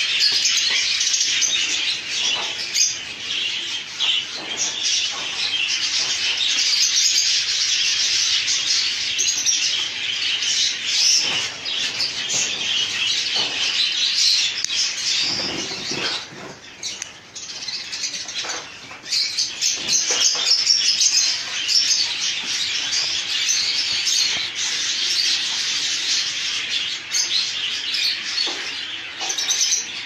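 A flock of budgerigars chattering and chirping together in a dense, continuous din of many small high calls.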